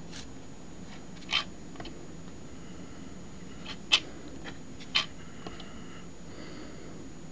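Three quick strokes of a felt-tip marker drawn across the card stock of a scratch lottery ticket, at about a second, four seconds and five seconds in.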